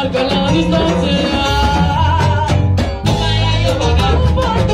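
Cuban salsa band playing live: a woman sings lead over drum kit, cowbell and a steady bass line.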